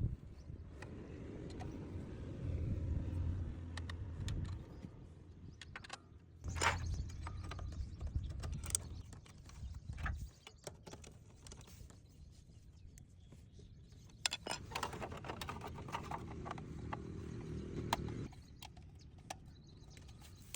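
Motorcycle running in three short spells of a few seconds each, with mechanical clicking and clattering of the drive chain and tools in between.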